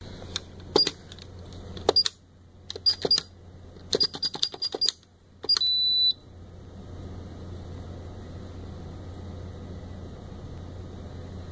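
RedPrairie employee time clock keypad: buttons pressed one after another, each giving a click and a short high beep, about nine in five seconds. A longer, slightly lower beep about six seconds in marks the punch being accepted, and a steady low hum follows.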